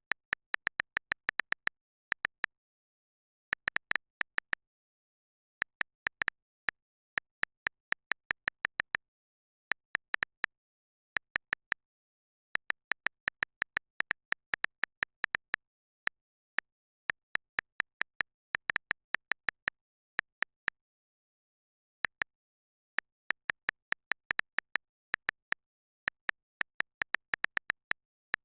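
Phone on-screen keyboard key-press clicks, short and sharp, coming in quick runs of several taps with brief pauses between, as someone types.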